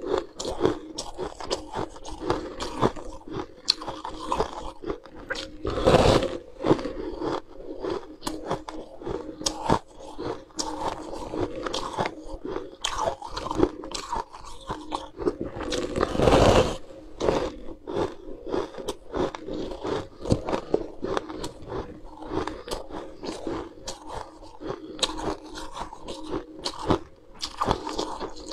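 A person biting and chewing a frosty block of ice: a dense run of crisp crunches, with two louder bites about six seconds in and again about sixteen seconds in.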